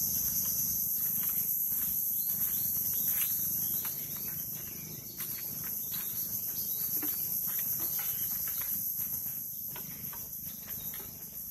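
Steady high-pitched insect drone, the shrill calls of insects in the mangroves running unbroken, with irregular soft knocks of footsteps on a bamboo slat walkway beneath it.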